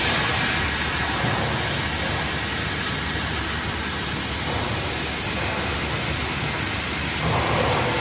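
Fiber laser sheet-metal cutting machine running, a steady hiss with a low machine hum beneath it.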